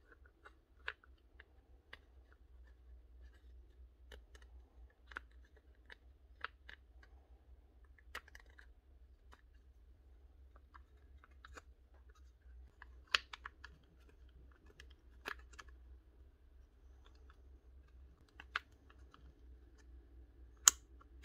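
Sparse light clicks and taps of small plastic parts being handled on a Makita cordless angle grinder. Near the end comes a loud, sharp click as the switch lever is snapped over, now moving freely with the dust cleared out of the switch.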